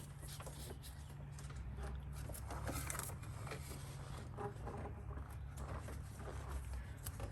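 Faint, irregular clicks, knocks and rubbing as a plastic intake inlet pipe is pushed and worked into place in a BMW E92's engine bay, over a steady low hum.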